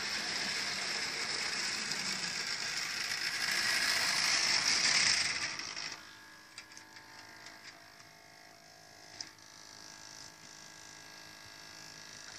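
Model train running along the layout track, its motor and wheels whirring and rattling and getting louder as it nears. About six seconds in the noise drops away as the train stops, leaving a faint hum with a few light clicks.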